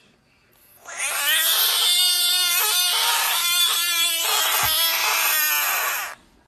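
A frog screaming after being poked on the head: one loud, harsh, wailing scream that starts about a second in and lasts about five seconds, the defensive distress call such frogs give when provoked.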